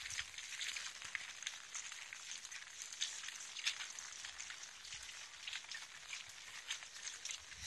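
Light rain falling: a steady crackling hiss of many small drops pattering.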